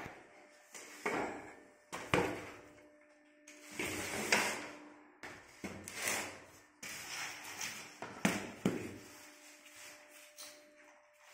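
Irregular knocks and clatter of flat-pack cabinet parts being handled: white particleboard boards lifted and set down on a hardboard floor, and loose metal fittings and screws clinking, with a sharp knock every second or so.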